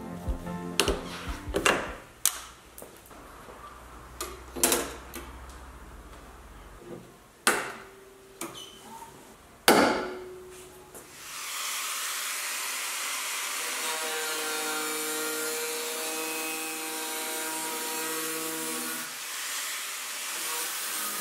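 Scattered sharp knocks and clicks of hand work on a car's steel body. About halfway through, an angle grinder starts and then runs steadily, cutting the sheet-steel body panel.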